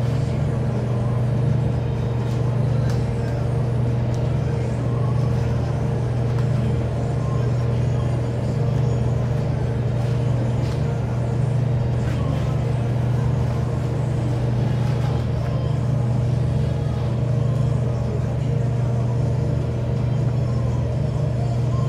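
A steady, unchanging low machine drone with a fainter, higher hum over it.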